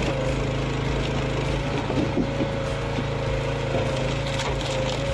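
Engine of a hydraulic firewood splitter running steadily at a constant pitch, with a few light knocks about two seconds in.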